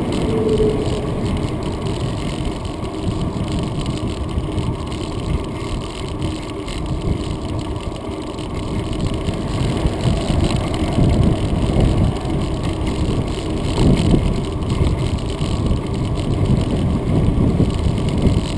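Wind buffeting and rumble from riding a bicycle along a concrete path, picked up by a camera mounted on the bike; a continuous, uneven low rumble that swells and dips, louder in the second half.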